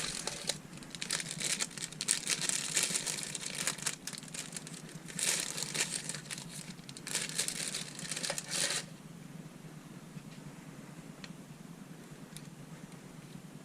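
Irregular crinkling and rustling handling noise while a piston ring is worked on by hand. It stops about two-thirds of the way in, leaving a few faint clicks.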